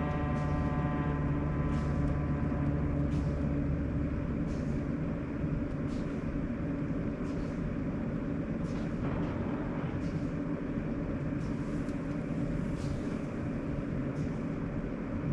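Sharp AY-J40S-W air conditioner running with its abnormal noise: a steady low hum with a whining tone that fades out in the first couple of seconds, and faint ticks about every second and a half. This is a fault that repairs to the unit, including work on its frequency control, have not cured.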